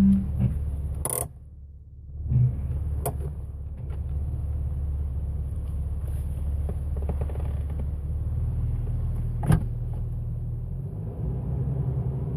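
Jeep Wrangler TJ running at low revs: a steady low drone with a buzz, the buzzing noise the owner is chasing at low RPM. It dips for about a second near the start, and there are a few sharp clicks.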